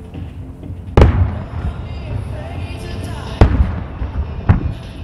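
Firework shells bursting in a music starmine: three sharp, loud booms, about a second in, a little after three seconds and near the end, each trailing off in an echo. Music plays underneath.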